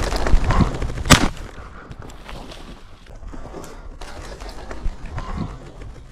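A single shotgun shot about a second in, sharp and loud with a short ring after it, following some rustling. Afterwards there is quieter background noise.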